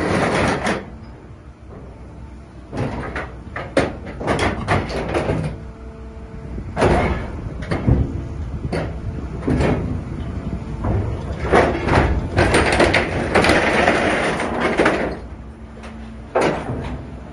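Hydraulic scrap metal press working: repeated scraping and grinding of steel on steel with clanks, the longest stretch about twelve seconds in. A low steady hum is heard at times beneath it.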